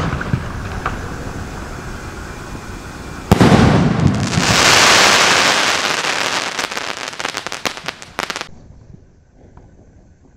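Pandyan Fireworks 'Fly Kingfisher' crackling sky shot: the shell climbs with a rushing hiss, then bursts with a sharp bang about three seconds in. A dense mass of crackling pops follows and thins out and stops a little past eight seconds.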